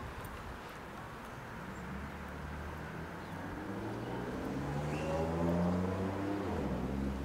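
A road vehicle's engine accelerating along the street, rising steadily in pitch and getting louder over several seconds, with a change in its low note shortly before the end.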